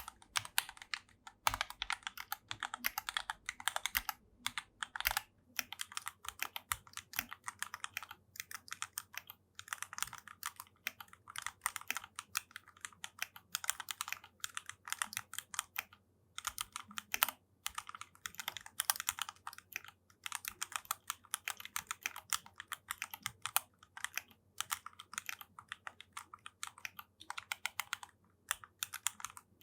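Typing on a modded Fantech Maxfit61 Frost 60% mechanical keyboard with Gateron Milky Yellow Pro switches, relubed stabilizers and EVA foam dampening: rapid keystroke clicks with a few brief pauses.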